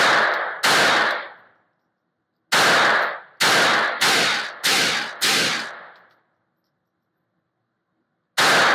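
Beretta 21A Bobcat .22 LR pocket pistol firing eight shots on an indoor range, each with a short echo. Two come close together, then after a pause five follow quickly about two-thirds of a second apart, and a last shot comes near the end.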